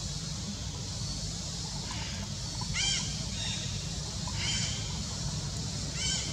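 Baby long-tailed macaque giving short, high-pitched cries, three times about a second and a half apart, each rising and falling in pitch: the distress calls of an upset infant. A steady low rumble lies underneath.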